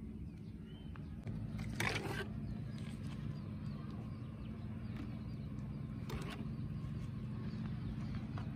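Outdoor ambience: a steady low hum with faint bird chirps, and two brief rustling noises about two and six seconds in.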